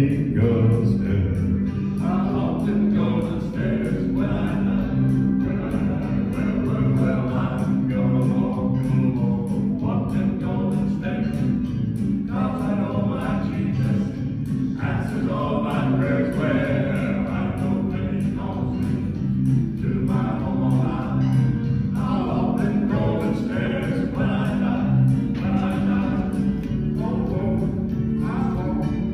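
Male gospel quartet singing in harmony.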